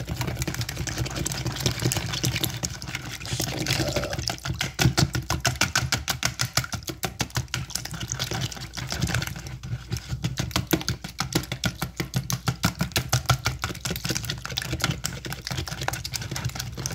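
Wire whisk beating raw eggs in a bowl: a fast, steady clicking of the tines against the bowl with a liquid sloshing, pausing briefly a couple of times.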